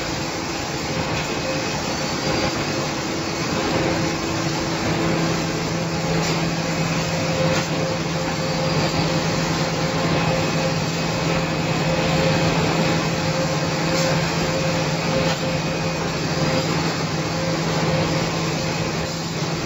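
Automatic facial tissue sealing and packing machine running with its pack conveyor: a steady mechanical drone with a hum, and a few faint clicks.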